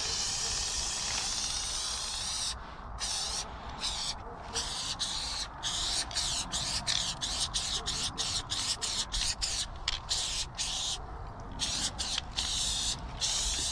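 Aerosol spray-paint can hissing as paint is sprayed onto a wall: one long spray for about two and a half seconds, then a run of short spurts with brief gaps between them.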